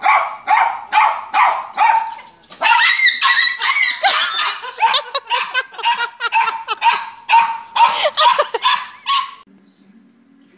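Small dog barking repeatedly, about three barks a second, then faster and more crowded barking that stops suddenly about nine and a half seconds in.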